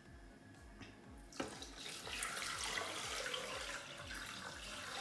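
Water poured from a glass carafe into a Thermomix's stainless steel mixing bowl. The stream starts about a second and a half in and runs steadily.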